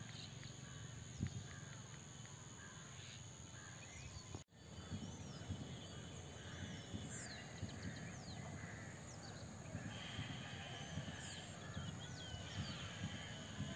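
Faint outdoor ambience with many birds chirping and calling over a low rumbling noise; the sound drops out for an instant about four and a half seconds in.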